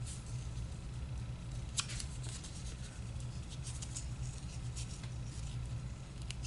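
A small piece of scrapbook paper being handled and worked in the fingers close by: scattered light crackles and ticks, one sharper about two seconds in, over a steady low hum.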